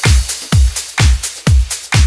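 Electronic dance music with a steady four-on-the-floor kick drum, about two beats a second, and a ticking hi-hat.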